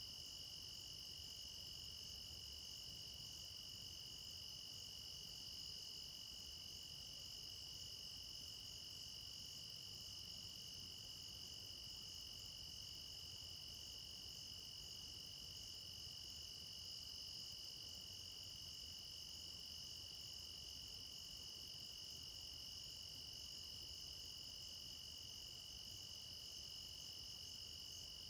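Steady chorus of crickets and other insects: a continuous high trill at two pitches, faint and unchanging.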